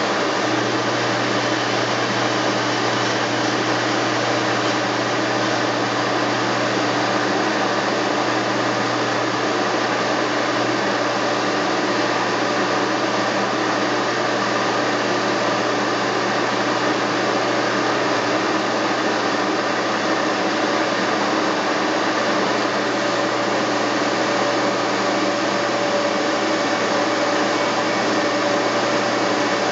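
Steady mechanical whirring noise of running workshop machinery, even and unbroken, with a low hum underneath.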